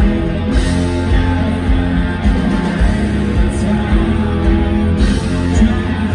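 Rock band playing live through a large PA, heard from the crowd: electric guitars, bass, keyboards and drums, with regular kick-drum beats and several cymbal crashes.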